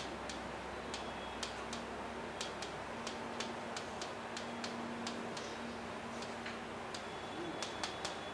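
Stylus tip clicking and tapping on an interactive display board during handwriting: irregular sharp clicks, two or three a second, over a steady electrical hum and hiss.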